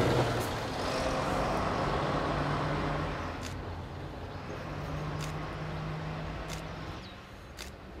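A road vehicle passing and fading away, loudest in the first three seconds, with a steady low engine hum. A few short sharp clicks are spread through it.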